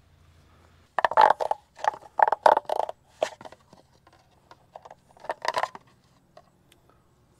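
Hydraulic fluid containers being handled while the tractor's hydraulic system is refilled: a series of short, irregular handling noises, clustered in the first few seconds and again about five and a half seconds in.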